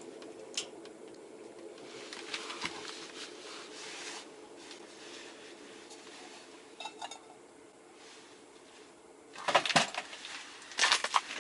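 Small metal fishing tackle being handled, with light clinks and clicks over a steady low hum. Two louder bursts of clattering come near the end.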